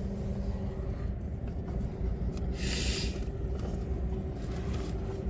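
Steady low mechanical rumble with a constant hum, and a short hiss about two and a half seconds in.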